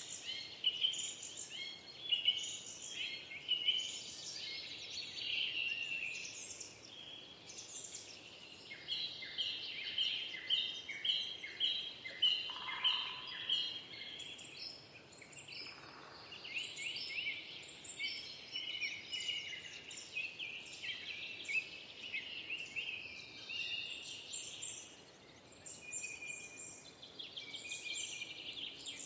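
Several songbirds singing and chirping at once, a dense overlapping chorus of quick high chirps and trills.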